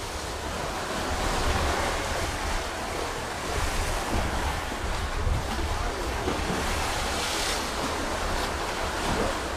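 Sea waves crashing against rocks, a continuous rushing surf that swells and ebbs, with wind buffeting the microphone.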